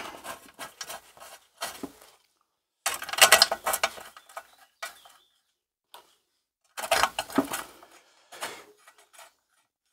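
Light metallic clicking and rattling in several short bursts with pauses between them, as steel bolts are fitted back into the rusty housing of a small Tecumseh engine.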